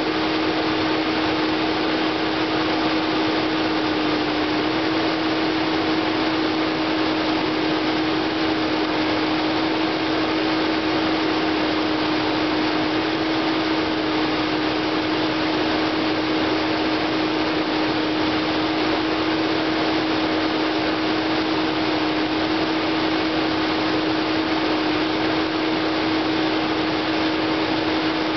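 Compact excavator's diesel engine running steadily with a constant hum while the boom, arm and bucket are worked on the hydraulics; the hum shifts slightly in pitch a few seconds in and again near the end.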